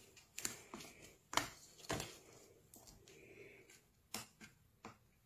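Knife blade cutting and picking at the tough fabric cover of a ballistic panel: a few sharp snips and clicks at irregular moments, with faint scratching of the cloth between them.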